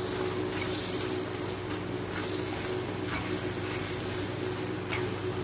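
Shrimp in sweet chili sauce sizzling in a hot nonstick pan, with a few light clicks of the spatula, over a steady low hum.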